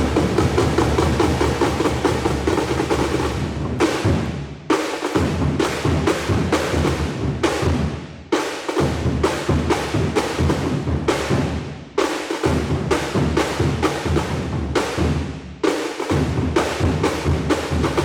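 Drumline of snares and bass drums playing a fast, loud cadence together. The bass drums drop out for a moment about every four seconds while the higher drums keep going, and the piece ends on a final hit that rings out.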